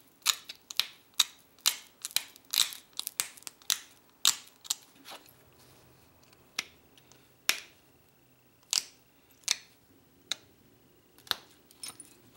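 Pressure flaking: a steel nail pressure flaker pressing flakes off the edge of a stone point, each flake coming away with a sharp click. The clicks come quickly, about two or three a second, for the first five seconds, then more sparsely, about one a second.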